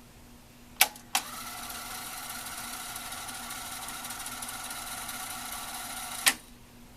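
Sony TC-K81 cassette deck's tape transport: two mechanism clicks, then a steady motor whir as the tape winds at high speed for about five seconds, cut off by another click.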